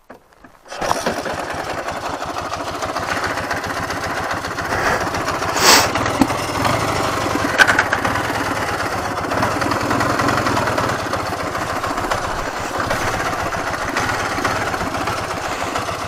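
Ural motorcycle's 750 cc air-cooled flat-twin engine starting up about a second in, then running steadily as the bike pulls away over rough dirt, with a couple of sharp clacks along the way.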